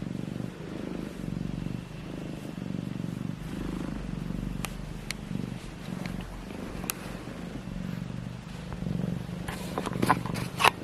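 Orange tabby cat purring steadily, the purr swelling and fading with each breath. Near the end, a burst of rustling and sharp clicks is the loudest sound.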